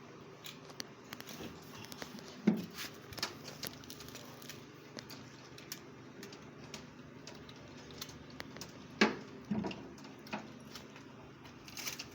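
Scattered light clicks and knocks from objects being handled, with louder knocks about two and a half seconds in and again around nine seconds, over a faint steady low hum.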